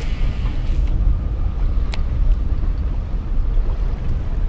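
Strong wind buffeting the microphone in a gusty low rumble. At the very start comes a short whir from the baitcasting reel's spool at the end of a cast, and a single click about two seconds in.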